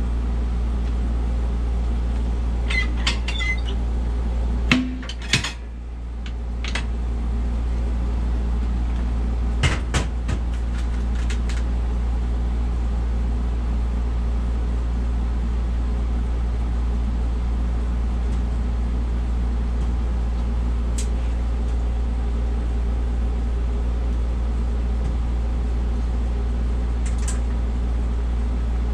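A steady low machine hum, with scattered metallic clicks and knocks in the first dozen seconds, the loudest a pair of knocks about five seconds in. A couple of faint ticks come later.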